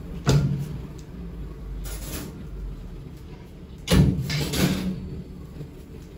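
Kitchen handling noises: two sudden knocks or clatters, one just after the start and a louder one about four seconds in, as things are moved about on the counter, over a low steady rumble.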